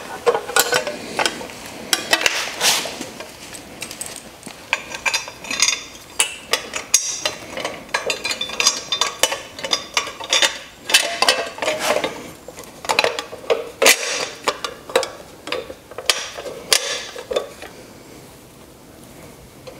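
Steel handle tubes and a bolt of a reel mower's handle assembly clinking and knocking against each other as the handle is fitted and the bolt is pushed through its holes: a string of irregular metal clicks and knocks, thinning out near the end.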